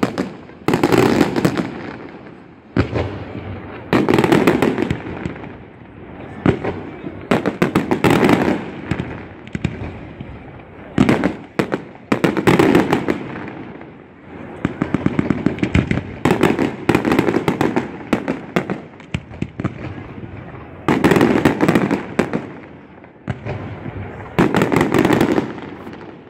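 Fireworks display: aerial shells bursting with sharp bangs and crackle, coming in dense volleys every few seconds with brief lulls between.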